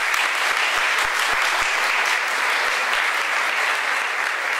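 An audience applauding: dense, steady clapping from many people.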